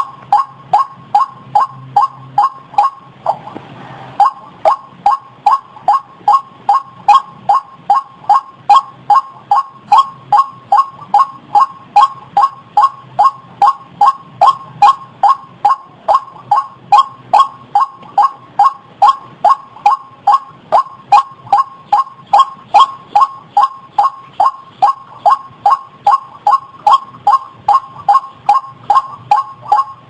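White-breasted waterhen (Amaurornis phoenicurus) calling its repetitive 'ruak-ruak' note over and over, about two to three short calls a second at an even pace. A brief hiss of noise breaks in about three seconds in.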